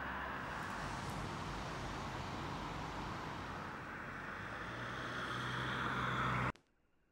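Steady rush of road traffic, growing a little louder toward the end, then cutting off abruptly near the end.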